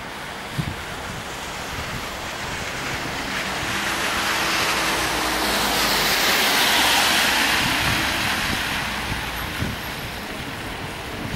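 Car tyres hissing on a rain-soaked road as a vehicle passes, swelling to a peak about halfway through and then fading, with a few soft thumps.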